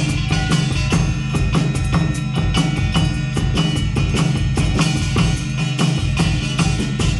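Band music with a drum kit playing a busy, steady beat over pitched instruments and a strong low bass line.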